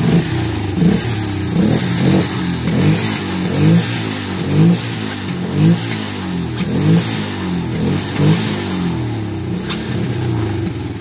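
Suzuki 230 quad ATV engines, single-cylinder four-strokes, running and revved over and over, the pitch rising and falling with a blip about every second.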